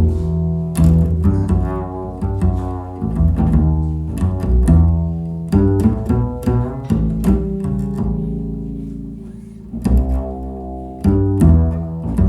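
Music played back through a compact nearfield studio monitor and picked up by a microphone: a string-led track with deep, sustained bass notes and sharply plucked notes. It eases into a softer held passage about eight seconds in, then picks up again.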